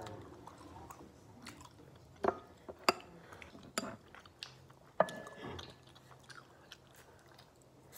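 Chewing a mouthful of tteokbokki. A few sharp clinks of a metal fork against a porcelain bowl come in between, the last one about five seconds in, ringing briefly.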